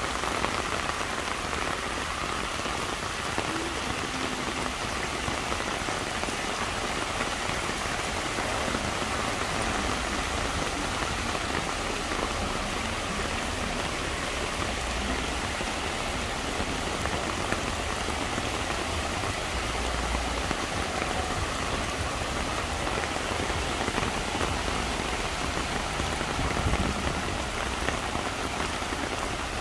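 Heavy rain pouring steadily onto a flooded road, an even, dense hiss. A few low rumbles come and go underneath it.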